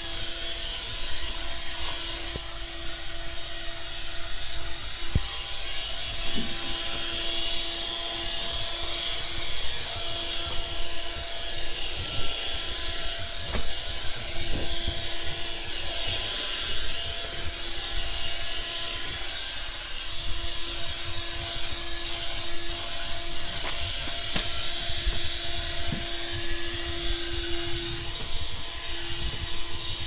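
Stick vacuum cleaner running with a steady motor hum and hiss, its floor head rubbing over tatami matting and now and then knocking against things.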